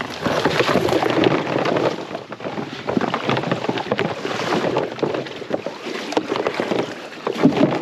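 Mallard decoys being handled and thrown out from a grass-covered sneak boat: irregular rustling, knocking and crackling of decoys, their weight cords and the boat's grass blind, with wind on the microphone.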